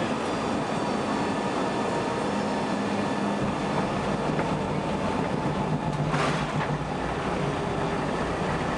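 Cabin noise of an Avro RJ100 rolling along the runway: its Honeywell LF507 turbofans whine faintly over a steady rush of air and wheel rumble. The rumble deepens about three and a half seconds in, and a brief rushing burst comes about six seconds in.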